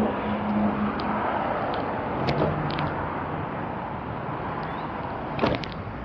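Steady wind and road noise on the microphone while riding an electric unicycle through traffic, with a faint hum from nearby vehicles. A few light clicks, the clearest about five and a half seconds in.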